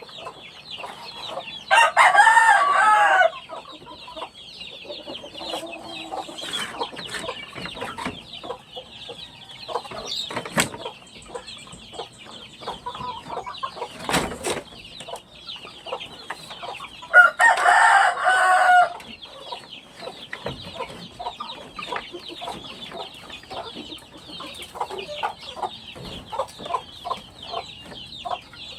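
Chickens clucking over feed, with many small taps, while a rooster crows twice: once about two seconds in and again a little past halfway.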